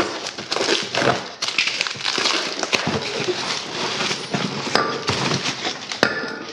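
Irregular rustling and clattering of new rubber hoses, clamps and their packaging being handled and unpacked.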